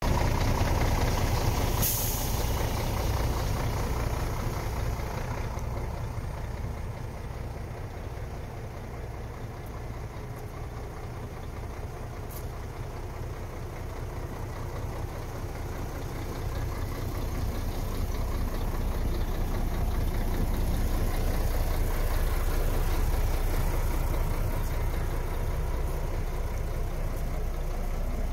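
MAN F2000 truck's diesel engine idling steadily, its level dipping in the middle and rising again, with two brief sharp sounds, one about two seconds in and one about twelve seconds in.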